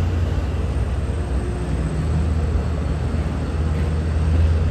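Double-deck commuter rail coaches rolling past at close range: a steady, deep rumble of wheels on rail with a hiss of running noise above it.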